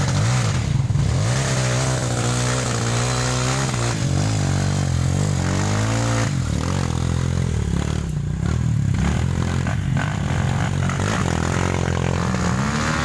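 Motorcycle engine running steadily, its pitch rising and falling repeatedly as the throttle is worked.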